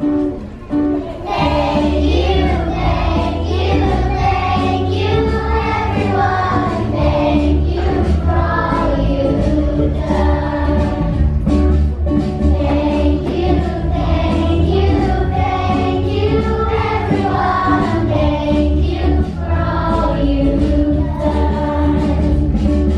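A song with a strong, steady bass line and a group of voices singing; the bass comes in about a second and a half in.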